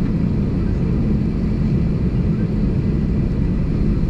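Airbus A320 cabin noise while taxiing: a steady low rumble from the jet engines and the rolling landing gear.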